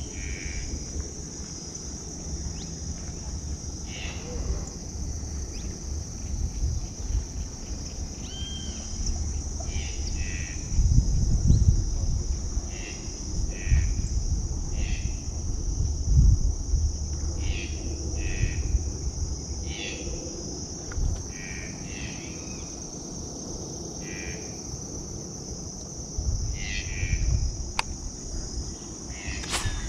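Steady high-pitched insect chorus, with short calls repeating every second or two over it. Low rumbles come and go, loudest about eleven and sixteen seconds in.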